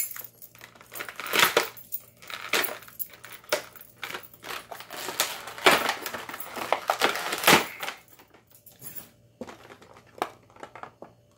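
Clear plastic packaging bag crinkling and rustling as it is handled, with sharp clicks and clinks of the loose plastic pieces inside, in irregular bursts that thin out after about eight seconds.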